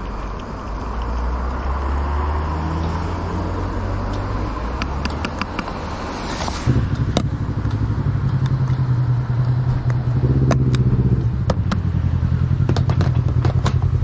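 Small clicks and clatter of a fuel nozzle and filler cap, then about seven seconds in a BMW F900R's parallel-twin engine starts and settles into a steady idle.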